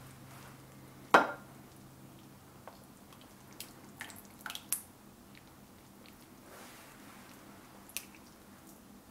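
Plastic slotted serving spoon knocking and clicking against a ceramic slow-cooker crock and plate while scooping chicken and sauce. One sharp knock comes about a second in, a cluster of lighter clicks follows a few seconds later, and there is a soft wet slosh of sauce being stirred.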